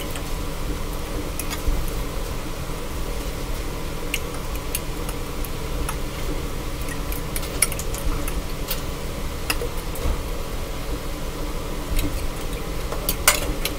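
Fork beating raw eggs in a glass mixing bowl, clicking against the glass at irregular moments, with a sharper clink near the end, over a steady low hum.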